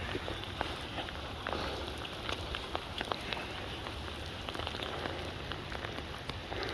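Steady rain falling, with many separate drops tapping close by.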